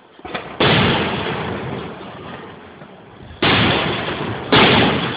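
Aerial firework shells bursting: three loud bangs, the first a little over half a second in, then two more about a second apart near the end, each trailing off in a long rumbling echo. A few small pops come just before the first bang.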